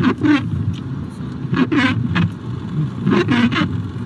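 Low, steady rumble of a car, heard from inside its cabin, with several short, loud sounds breaking in about once a second.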